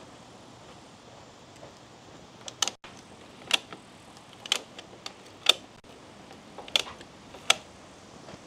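A series of about eight sharp clicks or knocks, irregularly spaced, starting about two and a half seconds in and ending near the end.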